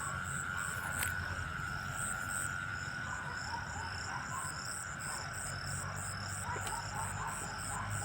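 Night chorus of crickets and frogs calling: a steady high trill with quicker, regular pulsing chirps above it, over a low rumble.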